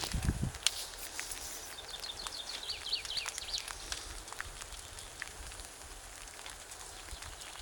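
A bonfire crackling in a forest: scattered faint clicks and pops, with a quick run of short high bird chirps about two seconds in. A couple of low thumps come right at the start.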